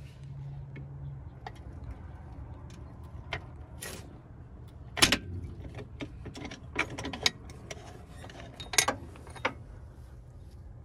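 Scattered metallic clinks and clanks from a steel floor-jack handle being handled in the jack, with the two loudest clanks about five seconds in and near the end, over a low steady hum.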